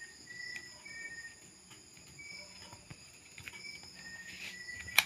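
Crickets and other insects chirping steadily, with short high chirps repeating every half second or so. Two sharp clicks about five seconds in.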